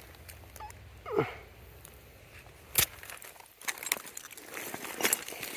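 Digging into a dirt bank: scattered sharp clicks and scrapes of a tool or hand working material loose, busier near the end. A short falling squeal comes about a second in.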